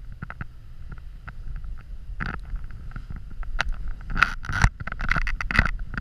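Boots wading through deep powder snow, crunching and swishing, louder and more frequent from about four seconds in, over a steady low rumble of wind on the microphone.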